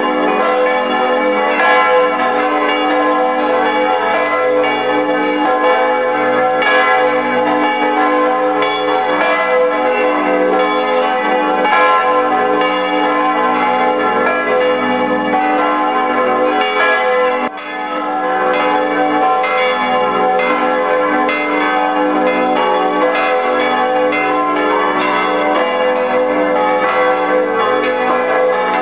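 Several large swinging church bells ringing together, heard from inside the belfry among the bells: a dense, loud wash of overlapping strokes and long humming tones, with a momentary dip in level a little past halfway.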